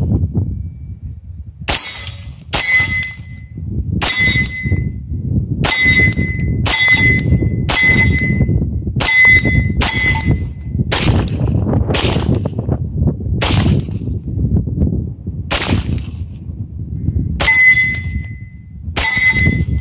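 Beretta M9A3 9mm pistol fired about fifteen times at an uneven pace, roughly one to two seconds between shots, many of the shots followed by a short metallic ringing tone. Wind rumbles on the microphone under the shots.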